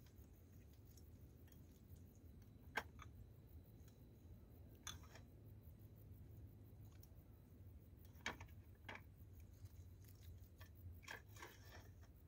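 Near silence over a low steady hum, with a handful of faint, short clicks and knocks scattered through it.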